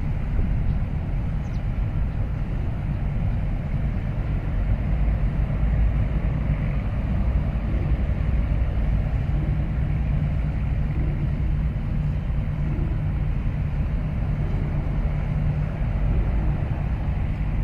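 Steady low mechanical rumble with a faint constant hum, mixed with wind buffeting the microphone.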